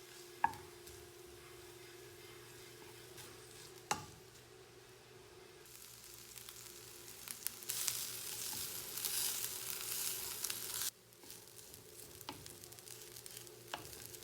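Faint sizzle of food frying in a pan: a soft hiss that starts about halfway through and cuts off suddenly a few seconds later, with a couple of light clicks before it.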